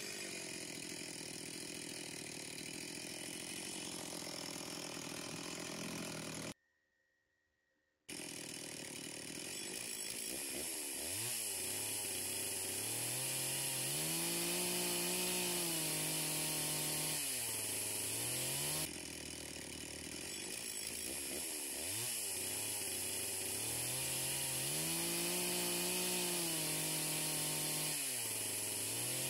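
Two-stroke chainsaw cutting into a log, its engine revving up and dropping back again and again as the chain bites and lets off. The sound breaks off for about a second and a half a few seconds in.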